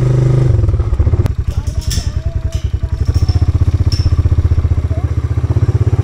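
Quad bike engine running close up as the bike is ridden: a steady note that turns into a fast, even throb about half a second in, with a few light clicks.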